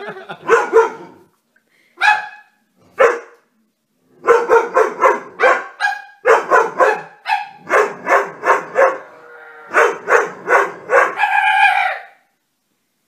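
A black-and-tan dog barking repeatedly in quick volleys of short, sharp barks, several a second, with short pauses between volleys and one longer drawn-out bark near the end.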